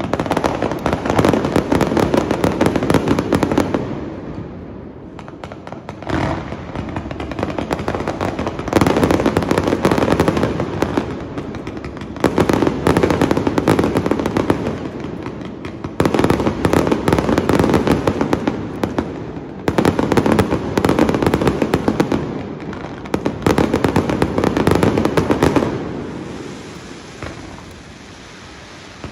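Aerial fireworks going off at close range: rapid, dense crackling and popping bursts in waves a few seconds long, with short lulls between barrages, tailing off near the end.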